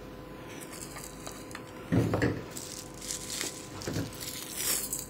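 Crinkling of a plastic bag and light handling noise as a plastic-wrapped wristwatch is lifted out of its presentation box, with a brief soft knock about two seconds in.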